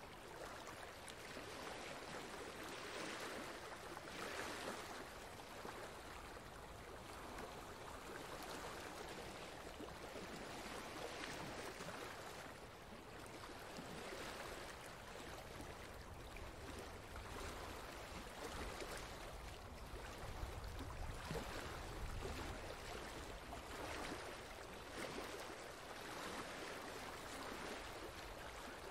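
Steady rush of running water, like a stream, with a noisy hiss that swells and eases unevenly every second or two.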